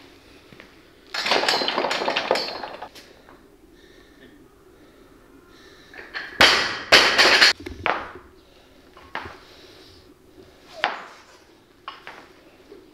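Loaded barbell with bumper plates clanking and banging on the lifting platform. A rattling clatter comes about a second in, the loudest cluster of bangs comes between six and seven and a half seconds in, and a few lighter single knocks follow.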